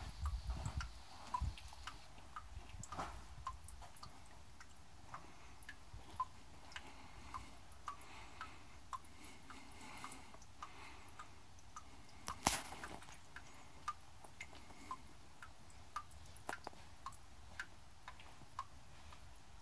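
Water drops falling one by one into a shallow rock pool, a small plink roughly every half second to second, with one louder drop about twelve seconds in.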